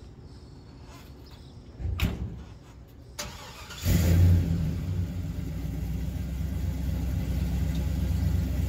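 A pickup's door shuts, then just before four seconds in the engine of a classic Chevrolet pickup cranks and catches with a brief rev before settling into a steady idle.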